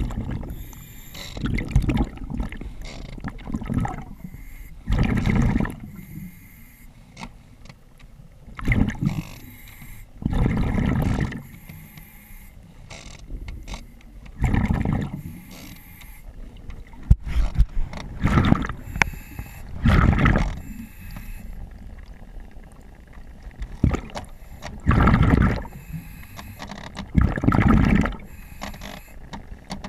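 A diver breathing through a regulator underwater: exhaled bubbles gurgle out in bursts of about a second every few seconds, with a softer hiss between breaths. A few small clicks and knocks come in between.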